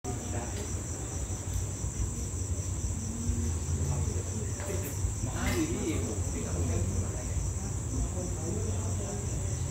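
Steady high-pitched chirring of night insects, with a low, steady rumble underneath.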